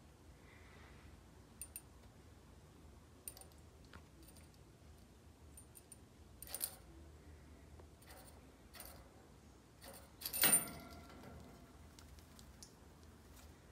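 Light scattered clicks and clinks from a wire birdcage and its hanging toys, with one louder metallic rattle that rings briefly about ten and a half seconds in.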